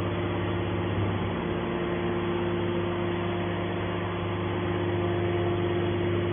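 Scrap metal processing machine running with a steady, even hum made of several fixed tones, with no impacts or changes.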